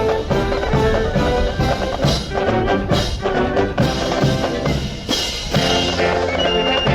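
Military brass band playing a march, with brass and regular bass drum and percussion beats.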